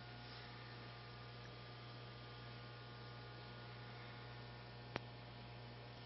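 Faint steady low hum over soft hiss, with one sharp click about five seconds in.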